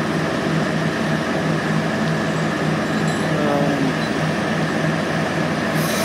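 Diesel engines of heavy logging equipment running steadily: a continuous drone with a constant low hum. A brighter hiss joins just before the end.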